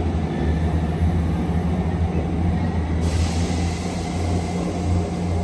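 A South Western Railway Class 159 diesel multiple unit pulling away, its underfloor diesel engines running with a steady low drone that slowly fades as the train draws off.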